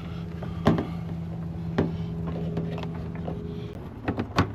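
A few sharp clicks and knocks of plastic trim parts being handled and fitted, over a steady low hum that fades out near the end.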